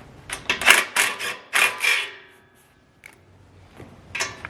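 Impact wrench with a 13mm socket hammering in two short bursts about a second apart, loosening the exhaust header nuts.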